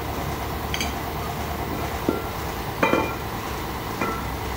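Cast iron brake drums knocked together and set down on a concrete floor: a few sharp metal clanks with a brief ring, the loudest about three seconds in.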